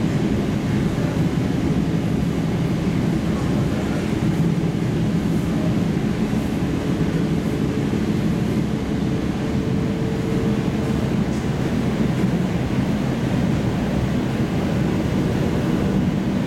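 EP2D electric multiple unit running between stations, heard from inside the car: a steady rumble of wheels on rails and running gear, with a faint whine for a few seconds around the middle.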